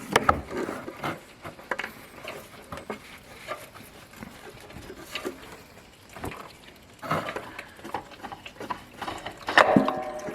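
Hand work on a small-engine oil filter as it is loosened and unscrewed: irregular clicks, knocks and scraping of a tool and hands on the filter, with a louder scuffle of handling near the end.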